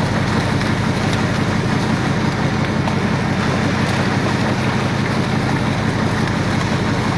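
Fishing boat's engine running steadily under a constant hum, with wind buffeting the microphone and sea noise over it.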